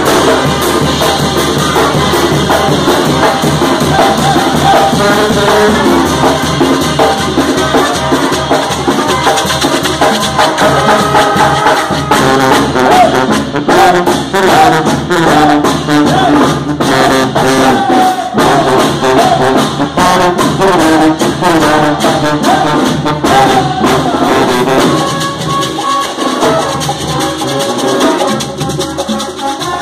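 Live Mexican banda, a brass band, playing a song: trumpets and trombones carry the melody over a sousaphone bass line, with congas and drums keeping a steady beat.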